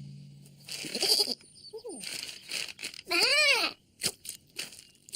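Cartoon lamb-style vocal sounds: a short rough burst and a quick falling squeak. Then comes one bleat-like call that rises and falls in pitch, followed by three short sharp clicks about half a second apart.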